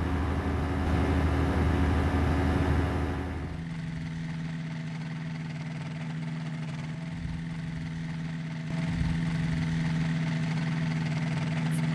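Ultralight aircraft engine and propeller droning as the plane passes low over a runway. About three and a half seconds in, the sound changes abruptly to a quieter, steady engine hum as the plane rolls and taxis on the ground. The hum grows a little louder about nine seconds in.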